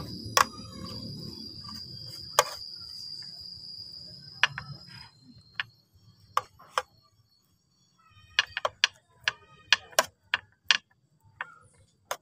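Metal spoon clinking and tapping against an aluminium baking pan while butter is spread over a baked cake layer: scattered sharp clicks, with a quick irregular run of them in the second half.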